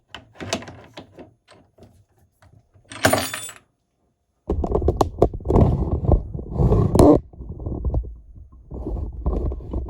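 Keys and small metal parts clicking and jangling as they are handled, with a short rattle about three seconds in. From about halfway a louder, dense, low scraping and rubbing noise takes over, with sharp clicks in it.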